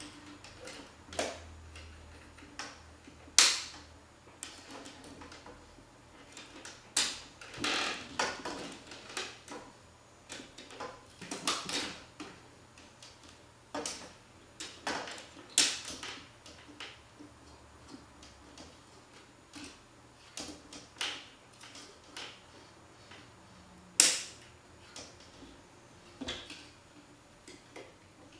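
Plastic parts of a CHAOS Tower ball-run kit clicking and rattling as track pieces and connector arms are fitted onto the tubular frame, with a few sharp snaps spread through.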